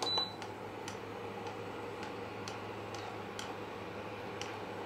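Mawa dough balls deep-frying in hot ghee: sparse, irregular small pops and ticks from the spitting fat over a steady low hum, with one louder click right at the start.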